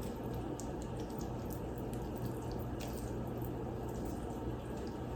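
Faint, wet peeling and handling sounds as the skin is pulled off a thawed salmon fillet by hand, with scattered small ticks over a steady low hum.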